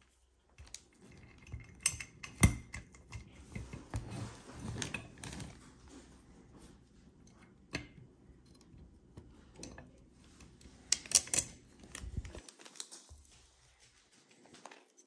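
Small steel screws and nuts clicking and rattling against a metal frame plate as they are handled and fitted by hand, with irregular taps and scrapes and a quick run of clicks about eleven seconds in.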